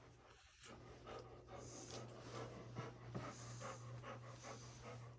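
Faint rhythmic panting, about two to three breaths a second, over a low steady hum that comes in about half a second in.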